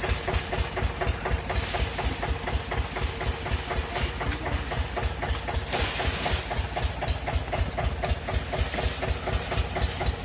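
Eicher tractor's air-cooled diesel engine idling with an even, rapid chug.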